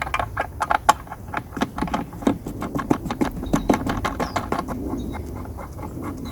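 Quick light clicks and rattles of the mower's metal blade and its fixings being handled and seated onto the plastic fan, thinning out near the end.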